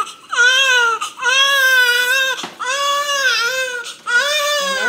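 Newborn baby crying: four long, high-pitched wails in a row with short pauses between.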